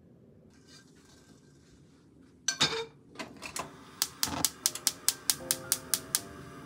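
Gas hob burner's spark igniter clicking rapidly, about five or six clicks a second for some two seconds, stopping as the burner lights. A single loud clank comes about halfway in, before the clicking.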